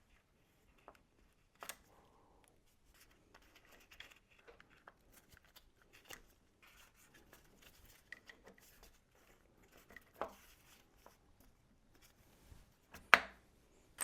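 Faint, scattered clicks and light rustling of hand work as new bolts are fitted to the timing chain components, with one sharp click near the end.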